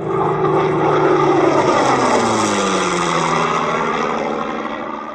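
Aircraft flying past: a loud engine drone whose pitch drops as it goes by. It cuts in and cuts out abruptly, as an inserted sound effect does.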